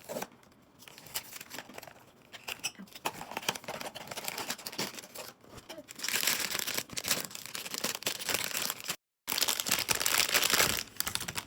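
A blind box's packaging being opened by hand: wrapping torn and crinkled in a dense run of crackles, busiest in the second half, with a short break about nine seconds in.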